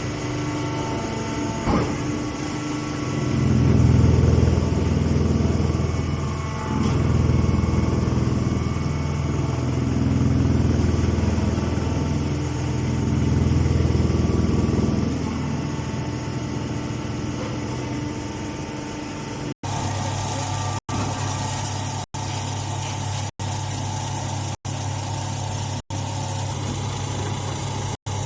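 A motor-driven machine running, its low rumble swelling and easing several times. It then settles into a steady hum broken by brief gaps about every second and a quarter.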